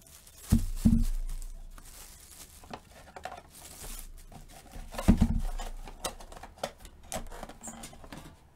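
Clear plastic wrapping crinkling and tearing as hands unwrap a baseball, with a few dull thumps from handling: two about half a second to a second in and another about five seconds in.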